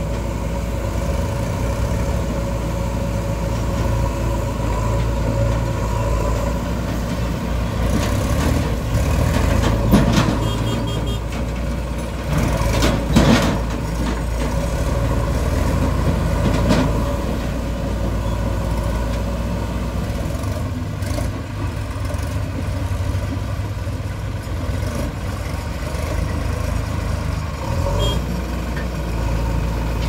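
Diesel engines of a backhoe loader and tractors running steadily under work, with a few sharp knocks in the middle.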